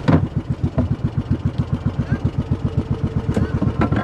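Small service boat's engine running steadily with an even, fast thumping beat of about nine firings a second. A few sharp knocks break through, one at the start and two near the end.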